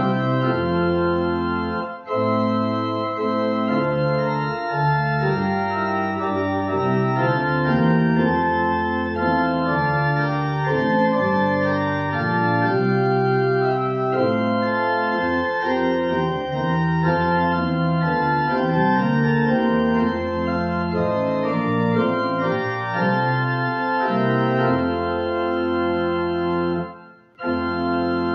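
Organ music: slow, sustained chords that change every second or so. It cuts out briefly about a second before the end.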